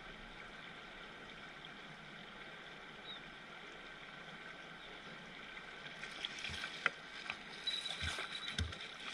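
Steady rush of a shallow river riffle. From about six seconds in, a series of sharp clicks and knocks comes on top of it.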